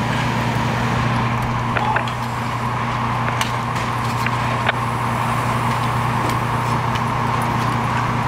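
A fire truck's diesel engine runs at a steady speed, making a continuous low drone with a higher hum above it. A few light clicks and knocks of gear and hose handling sound over it.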